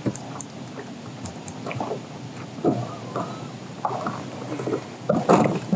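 Lake water lapping and slapping against a bass boat's hull, with irregular knocks and splashes; the loudest slap comes about five seconds in.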